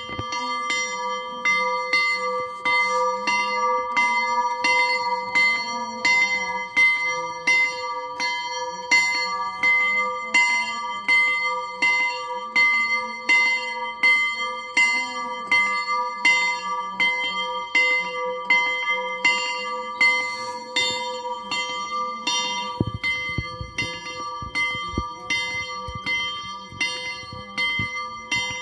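Orthodox hermitage church bells, several bells rung together in a continuous peal. A loud stroke falls about once a second among quicker, lighter strokes, over the steady ringing of the bells.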